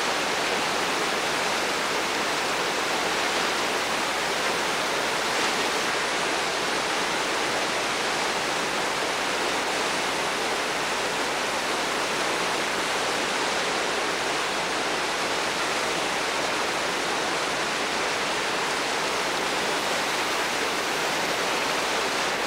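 Steady rush of whitewater pouring over boulders in a Class V river rapid, an even hiss-like roar with no breaks.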